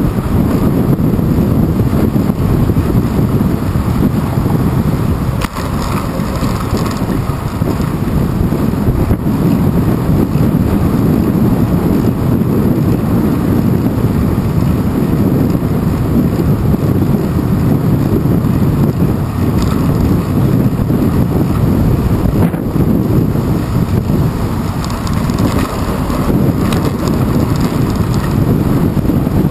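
Strong wind buffeting the microphone of a handlebar-mounted GoPro Hero 2 while cycling, a steady, loud low rush with no break.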